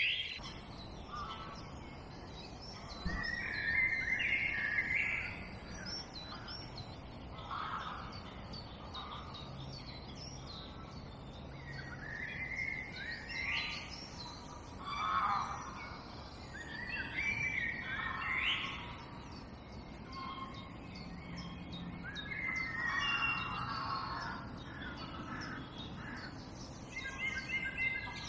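Several songbirds singing and calling, short chirping phrases overlapping every second or two.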